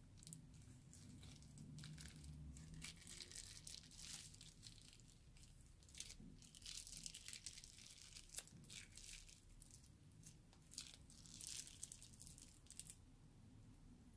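Faint, irregular crinkling of a plastic piping bag being squeezed as it pipes liquid slime ingredients into a bowl.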